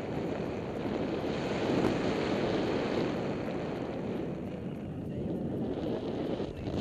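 Wind rushing over the camera microphone of a paraglider in flight just after launch, a steady rush of air that swells a little about two seconds in and eases near the end.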